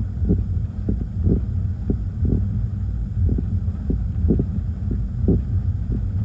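Gusty storm wind buffeting the microphone: a constant low rumble broken by short, irregular thumps as the gusts hit.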